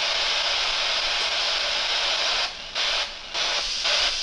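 Heavy rain falling on the roof of an abandoned passenger train car, a steady loud hiss that dips briefly a few times between about two and a half and four seconds in.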